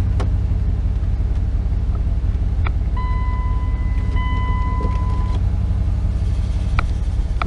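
Pickup truck engine idling with a steady low rumble, with two sharp clicks from the transfer-case shift lever being moved between ranges. A steady beep-like tone sounds for about two seconds near the middle.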